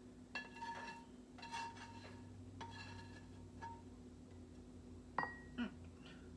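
Spatula scraping scrambled eggs out of a frying pan into a bowl: several short scrapes with a ringing tone, about one a second, then a sharp clink about five seconds in.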